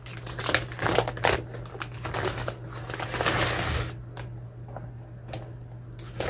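Brown paper mailer bag rustling and crinkling as it is handled and a small cardboard box is pulled out of it, with light clicks and knocks. The handling is busiest over the first four seconds and thins to a few small clicks after.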